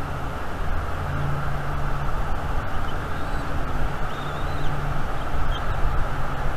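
Strong wind buffeting the nest cam's outdoor microphone, a steady rushing noise with a deep rumble. A few faint bird chirps sound through it.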